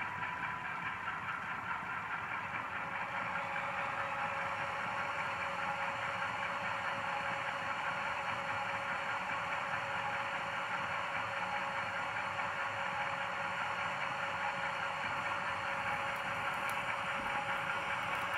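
Sound-equipped HO scale model of a GE Dash9-44CW diesel locomotive, its LokSound 5 decoder playing the engine and dynamic brake sound through the model's small speaker. It runs steadily and grows a little louder over the first few seconds as the dynamic brake is notched up.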